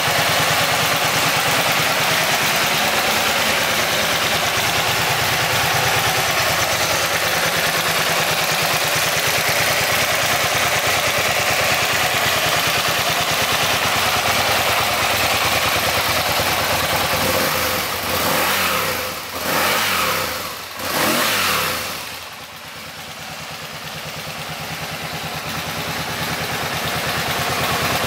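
Aprilia Tuono 1000's 998 cc V-twin engine running steadily at idle. Roughly two-thirds of the way through, the level dips a few times and falls away, then builds back up toward the end.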